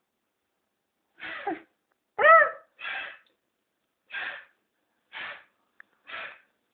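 A young child making short breathy vocal sounds close to the microphone, about one a second, with one louder voiced squeal about two seconds in.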